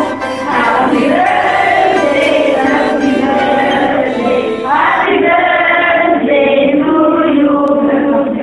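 A group of voices singing a birthday song together.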